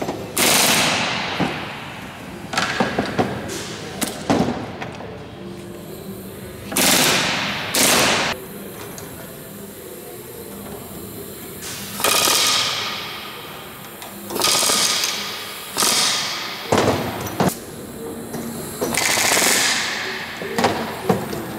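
Pneumatic rivet gun hammering rivets into an aircraft aluminium part against a reaction block (bucking bar): a series of short rapid hammering bursts, each under a second, separated by quieter pauses.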